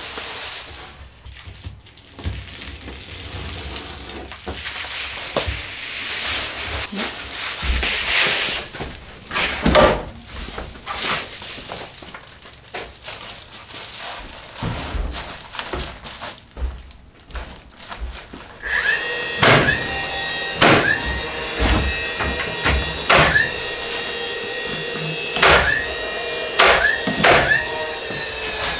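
Reflective bubble-foil insulation rustling and crinkling as it is handled, with scattered sharp knocks. Then a DeWalt stapler fires again and again, about once a second, fastening the foil to the wall studs, while background music comes in about two-thirds of the way through.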